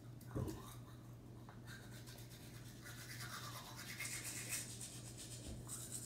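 Manual toothbrushes scrubbing teeth, a faint scratchy rhythmic brushing that gets a little louder about four seconds in. There is one short knock about half a second in.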